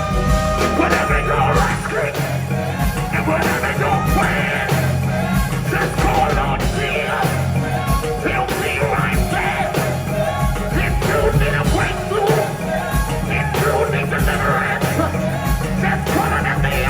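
Live gospel band music with a steady drum beat and heavy bass, with voices singing and shouting over it.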